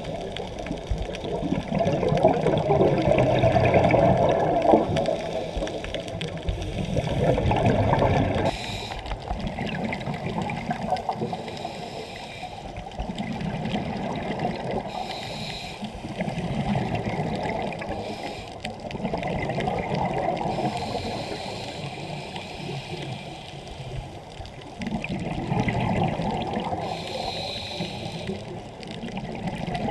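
Scuba diver breathing through a regulator underwater: exhaled bubbles gurgle in swells about every five seconds.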